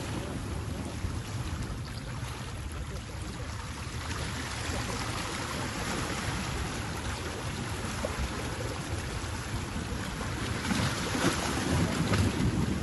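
Seawater surging and washing over the rocks of a rocky shore, a steady rush of surf that swells louder near the end.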